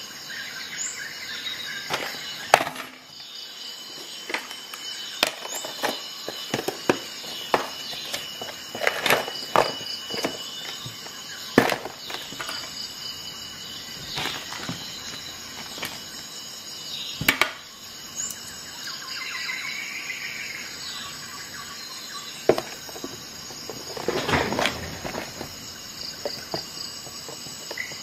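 Scattered sharp metal clicks and snaps of a SOG Paratool multi-tool being handled as its tools are opened and closed, over a steady high insect chirring.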